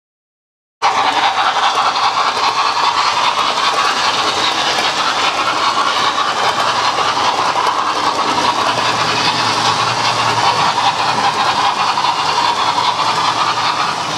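Model train running on the layout's track: a steady whirring rolling noise of wheels and motor. It comes in after a dropout of under a second at the start.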